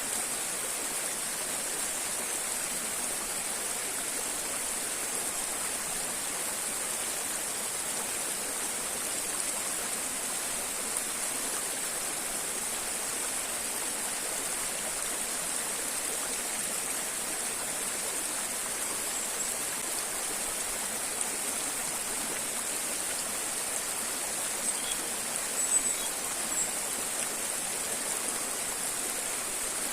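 River water rushing steadily over rocks, with a few brief sharp sounds near the end.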